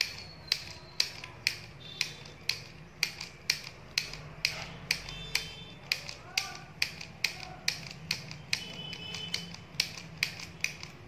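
Handheld stapler-style mini sewing machine clicking with each squeeze of its handle, about two clicks a second in a steady rhythm. Each press makes one stitch as the machine sews a seam through cloth.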